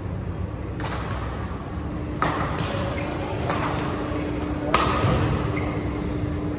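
Badminton rally: rackets striking a shuttlecock, four sharp hits about a second and a half apart, echoing in a large hall. A steady low hum starts about two seconds in.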